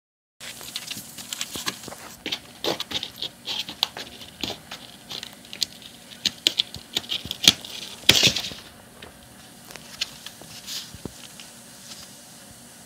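A cat's paws and claws scratching and pattering on the cardboard floor of a box: a busy run of quick scratches, loudest around two-thirds of the way in, then thinning out to a few scattered scratches near the end.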